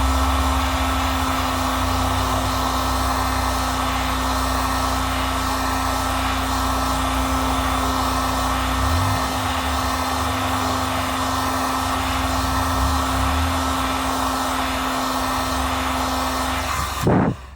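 Hot-air blower running steadily with a constant hum and whine, heating the phone's screen to soften the adhesive under the cracked glass. It is switched off near the end and cuts out abruptly.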